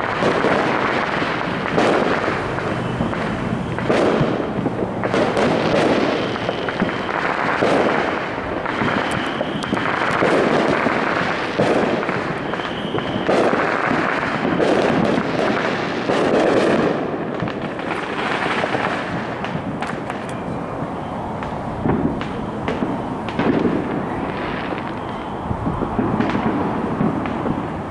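Fireworks going off all around in a continuous barrage: overlapping bangs and crackling with no pause, louder bursts coming every second or two.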